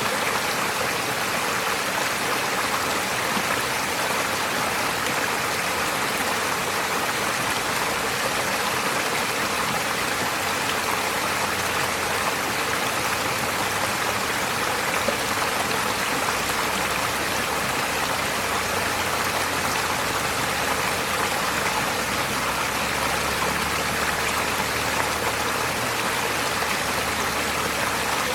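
Steady rushing of a shallow forest stream flowing over stones.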